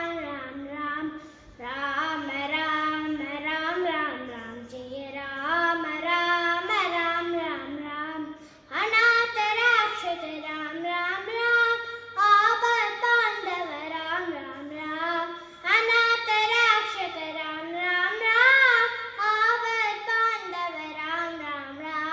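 A young boy singing a Rama bhajan solo in Carnatic style, with no accompaniment, in long phrases of sliding, ornamented notes and short breaths between them.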